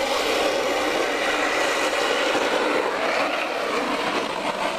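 Wooden downhill board cart rolling fast on asphalt on its steel ball-bearing wheels: a loud, steady rolling noise as it passes close by.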